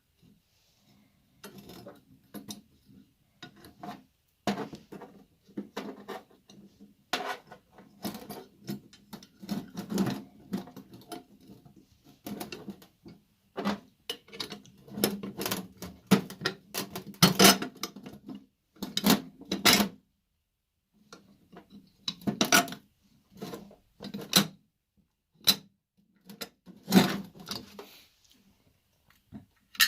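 Irregular clinks, knocks and scrapes of metal winch parts and hand tools being handled during disassembly, with several short pauses between bursts.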